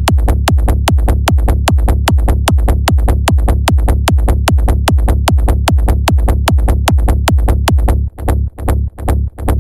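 Hardstyle dance music: a fast, evenly pounding kick drum over heavy bass. About eight seconds in, the bass under the kicks drops away, leaving the beats standing apart.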